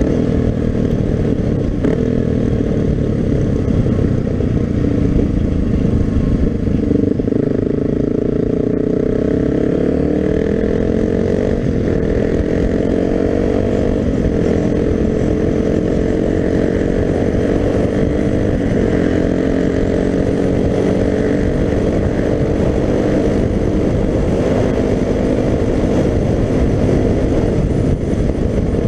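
Suzuki DR-Z250's single-cylinder four-stroke engine running under way, with a constant rush of wind and road noise. Its pitch climbs for several seconds through the middle, dropping back at a few gear changes, then holds fairly steady toward the end.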